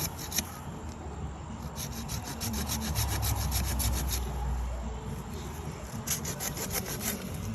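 Hand pruning saw cutting through wood with quick back-and-forth strokes, making an undercut in a tree. There is a long run of strokes about two seconds in and another near the end.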